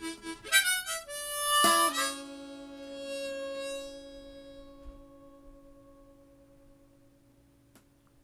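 The closing bars of a song: a quick run of instrument notes, then a final held chord that rings and slowly fades out. A faint click comes near the end.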